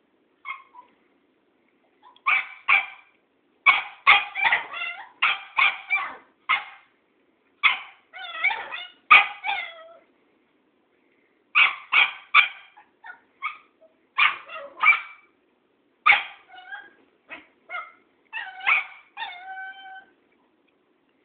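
Cairn terrier puppy barking in quick runs of high yaps, with short pauses between the runs, ending on a longer whining call.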